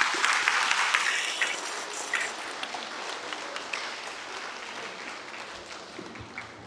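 Applause from a crowd of schoolchildren, loudest at the start and gradually dying away.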